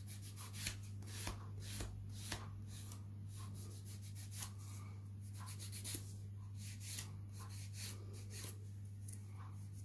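A white block buffer rubbing over a resin-coated wrap nail in short, quick strokes, about two a second, making a faint dry scuffing.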